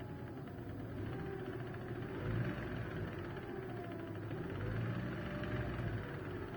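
Great Wall Hover drivetrain running with the clutch released: a steady low rumble and rattle that swells twice, with a faint whine rising and falling. The mechanic takes the rattling for noise from the manual gearbox, suspected for the knock in third gear.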